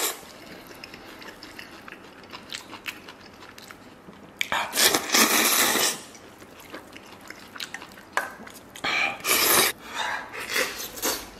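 A person slurping oil-splashed noodles in two long loud sucking bursts, with soft chewing and mouth clicks between them.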